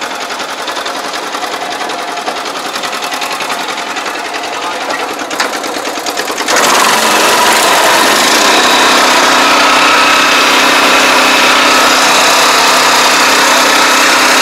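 Pesticide sprayer's small engine and spray pump running steadily with a fast, even beat. About six and a half seconds in the sound jumps suddenly louder and hissier and stays at that level.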